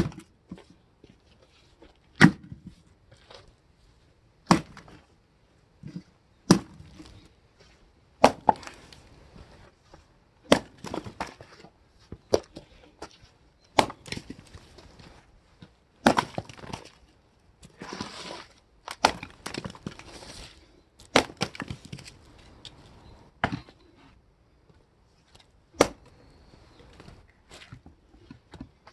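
Firewood knocking and cracking: a sharp wooden clack about every two seconds, with splintering crackle between the knocks.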